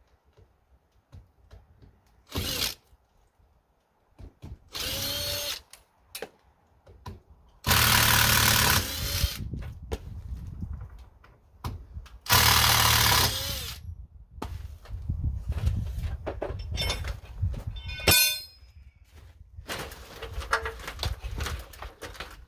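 Cordless drill backing out window-frame screws in short bursts, four main runs of up to about a second and a half, the motor's pitch falling as it stops, with a sharp clatter near the end.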